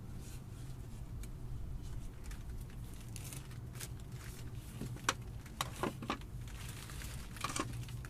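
Coiled woven baskets being handled and set down: soft rustling and scraping with a few sharp taps, the clearest in the second half.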